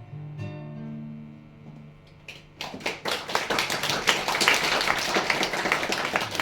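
The guitar's closing chord rings out and fades. About two and a half seconds in, a small audience starts applauding.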